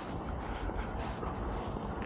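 Footsteps of someone walking, shoes scuffing on a path a few times a second, over a steady low rumble.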